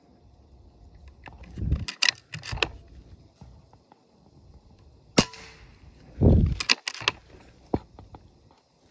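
A single sharp rifle shot about five seconds in, with a short ringing tail. Scattered smaller clicks and low thumps come before and after it.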